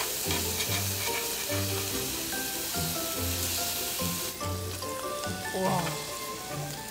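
Pork belly strips sizzling on a hot griddle plate, with a few light clicks of metal tongs. The sizzle drops to a quieter level about four seconds in. Background music with a repeating bass line plays underneath.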